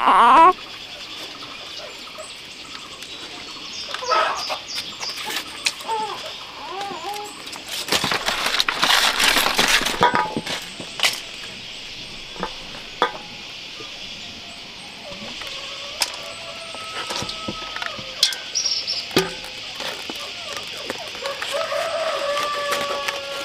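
Hands wrapping sticky rice in green leaves over a metal basin: leaves rustling and crinkling, with scattered clicks of rice and leaves against the metal, and chickens clucking now and then. A steady high hiss runs underneath.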